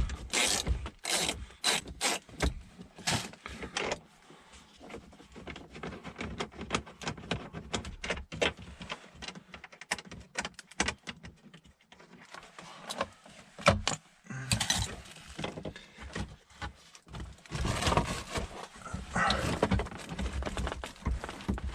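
Ratchet wrench clicking in repeated strokes, about two a second, as a 10 mm bolt is backed out. It gives way to scattered clicks and clinks, then louder rustling and clatter of tools and parts being handled.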